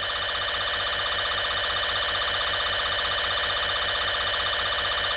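Steady electronic emergency-alert alarm tone, several pitches at once with a fast pulsing warble. It signals a nuclear attack warning.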